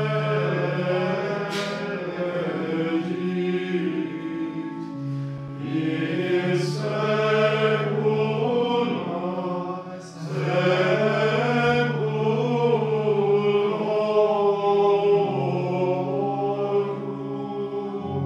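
Choir chanting a slow sacred hymn over long held low notes, with brief pauses between phrases about a third and halfway through.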